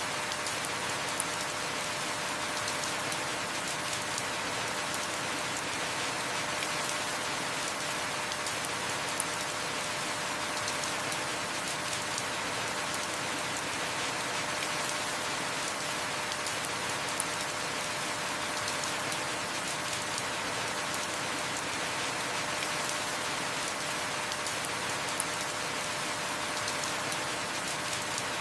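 Heavy rain falling steadily: an even hiss of many drops, with an occasional sharper single tick.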